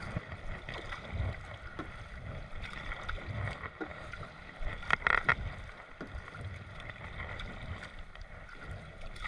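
Kayak paddle strokes on calm sea water: the blades dip in every couple of seconds, with drips and small splashes, one louder splash about halfway through, and a low rumble of wind on the microphone.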